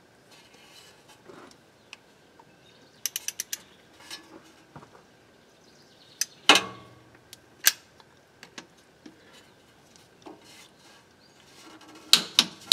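Light metallic clicks and clinks of an 8 mm hex bit socket as the level plug is threaded back into a Subaru front differential by hand. There is a quick run of clicks about three seconds in, a sharper ringing clink a little past halfway, and more clicking near the end.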